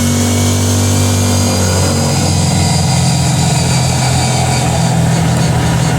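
ATV engine running as the machine pulls away and rides on, a steady drone whose note changes about two seconds in, over a constant hiss.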